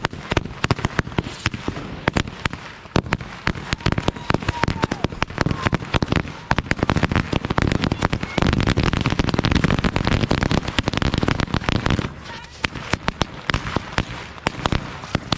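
A 2000-wala, a long string of small firecrackers, going off in a rapid run of sharp bangs. The bangs come thickest, blurring into one continuous crackle, from about eight to twelve seconds in, then thin out again.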